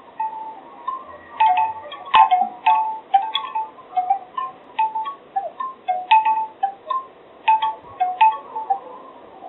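Bamboo wind chimes knocking in the wind: many irregular short strikes at a few different pitches, with a dense cluster of them about two seconds in.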